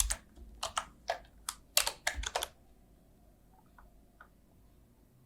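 A quick, irregular run of about a dozen sharp clicks over the first two and a half seconds, then a few faint ticks about four seconds in.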